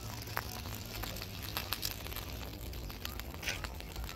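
Wooden spinning top spinning on gritty dirt, its tip scratching the ground with scattered small ticks and crackles.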